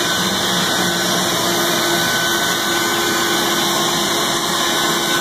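Wet-dry shop vacuum motors running steadily while sucking up floodwater: a constant rush of air with a thin steady whine.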